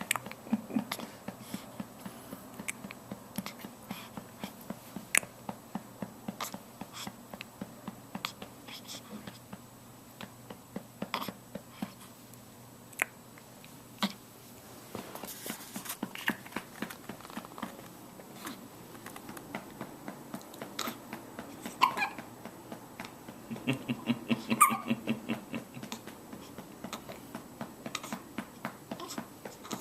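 A pet hiccuping: short, sharp hiccups repeating irregularly, roughly one a second, with a louder spell of sound about three-quarters of the way through.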